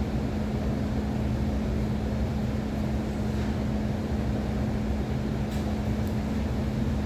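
Steady low mechanical hum with one constant droning tone and a low rumble underneath, like building machinery running; a couple of faint ticks come near the end.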